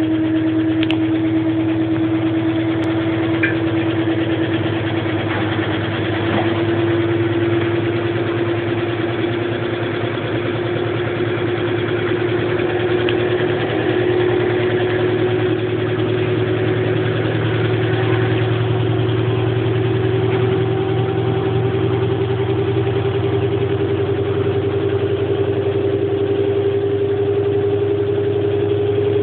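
Electrolux washing machine in its spin cycle, running with a loud steady hum and a whine that slowly rises in pitch as the drum speeds up. This is the abnormal spin noise that the machine is being recorded for.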